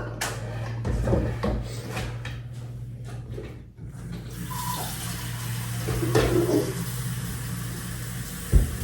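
Kitchen tap running water into a measuring cup, starting about four seconds in after a few knocks and clatters of handling. A steady low hum runs underneath.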